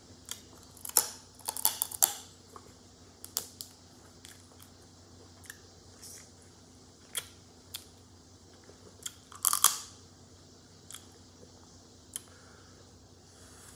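Boiled shellfish shells (crab and crawfish) cracking and snapping as they are pulled apart by hand: irregular sharp cracks and clicks, the loudest cluster about two-thirds of the way in.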